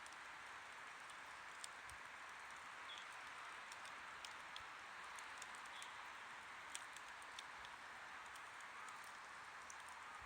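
Wood campfire burning quietly: a soft steady hiss with small crackles and pops at irregular intervals.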